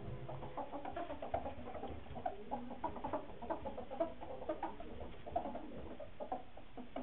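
Ferrets dooking: rapid, irregular soft clucking chatter made while scuffling and play-fighting, with light scrabbling and patter mixed in.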